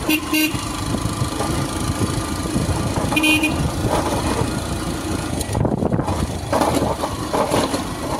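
Motorcycle running over a rough dirt road, with steady engine and road noise. A horn toots twice quickly right at the start and once more about three seconds in.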